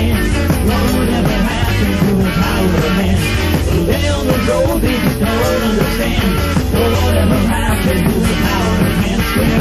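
1980s new wave rock band recording playing a danceable beat, with drums, bass guitar and two electric guitars.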